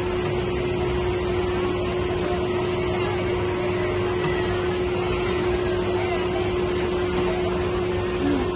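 Fairground machinery running: a steady mechanical hum with one constant tone over a wash of noise.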